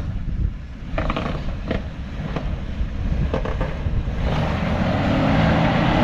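Off-road truck crawling up a rock ledge: a low rumble with several sharp creaks and knocks as it works over the rock, then the engine revs up, rising in pitch, about four seconds in.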